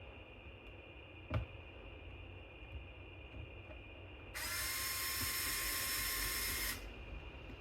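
Small electric screwdriver whining steadily for about two and a half seconds as it backs out a laptop's bottom-cover screw, starting a little past halfway and stopping abruptly. A single sharp knock comes earlier, about a second and a half in.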